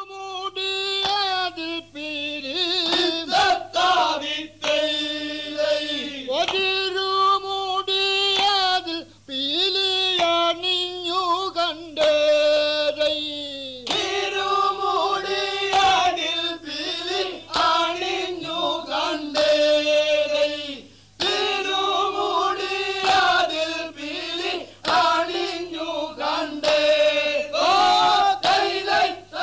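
Voices singing together in a chant-like song, in long held phrases with short breaks between them.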